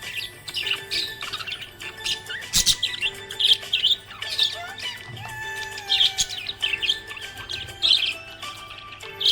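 Budgerigar chirping and warbling in quick clusters of high chirps that come again about every second, over background music.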